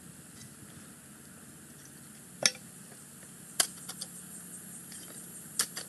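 Concrete blocks clinking and knocking against each other as they are handled and set: a few short, sharp clinks, the first about halfway through and two close together near the end.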